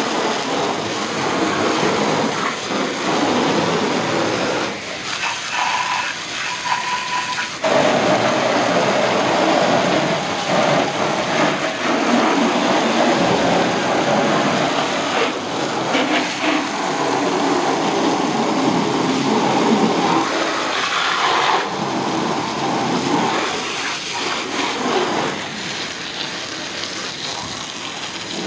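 High-pressure water jet spraying and splashing against a pickup truck's body panels, wheel and rear window, a steady hiss that changes in tone and loudness as the jet moves over different surfaces.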